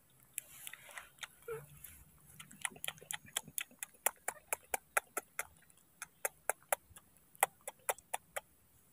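Baby macaque chewing banana, its mouth making sharp, wet smacking clicks at about three to four a second, starting a couple of seconds in.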